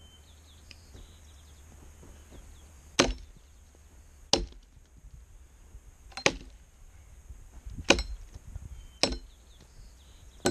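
Axe chopping into a fallen log: six sharp hits, one every second or two.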